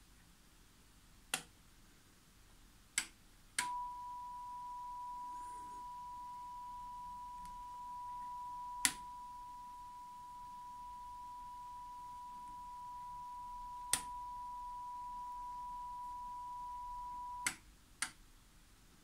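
Push-button clicks on an Aurex AD-4 dynamic range expander, then a steady, pure calibration test tone that comes on with a click a few seconds in and cuts off with a click near the end, with two more clicks while it sounds. Seven clicks in all.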